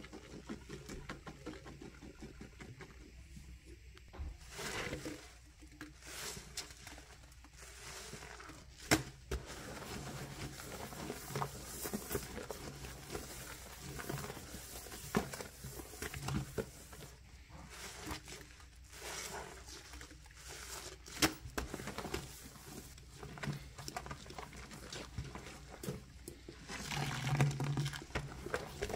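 A sponge scrubbing a stainless steel sink coated in powder cleanser and soap suds: scratchy rubbing strokes with scattered sharp clicks. Near the end, a louder wet squelch and splashing as the soapy sponge is squeezed over the sudsy sink.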